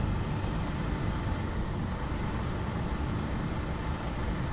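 Steady low rumble of road traffic with no distinct events.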